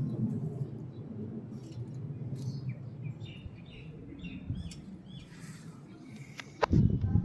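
Birds chirping in a run of short, quick chirps through the middle, over a steady low rumble. A sudden loud thump comes near the end.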